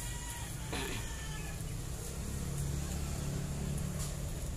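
Chickens clucking faintly over a steady low rumble that swells slightly about two seconds in.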